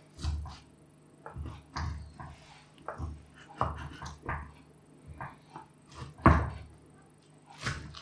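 Spatula edge chopping down through an omelette and knocking on the bottom of the frying pan: a string of irregular dull thunks, the loudest about six seconds in.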